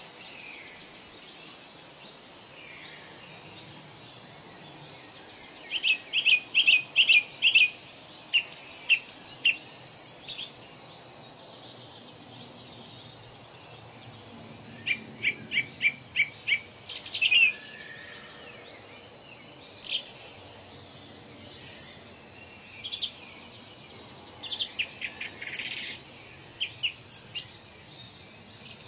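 Birds calling in a forest over a steady background hiss. One bird repeats a quick run of sharp chirps, about five a second, three times, and thin high whistles slide downward between the runs.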